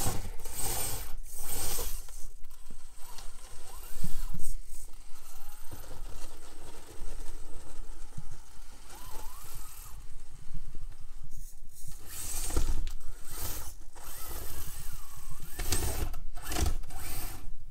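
FMS FCX24 micro RC crawler working over a rock course: its small electric motor and gears whir in stop-start bursts as the throttle is worked, with knocks and scrapes of tyres and chassis on rock. The long chassis is hanging up on its belly for lack of breakover clearance.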